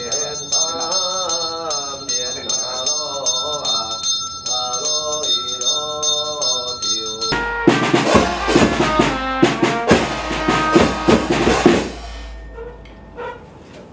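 Chinese funeral ritual music. A wavering melody runs over a small bell rung steadily and rapidly. About seven seconds in, loud drum, cymbal and gong strikes come in suddenly and last about five seconds, then thin out to a few scattered clangs.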